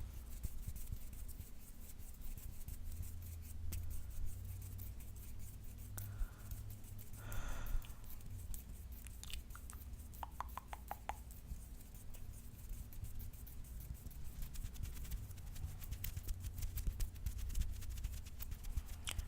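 Close-miked ASMR hand sounds: fingernails scratching a palm in a dense run of quick, faint scratchy ticks. A breath comes about seven seconds in, and a short quick string of clicks about ten seconds in.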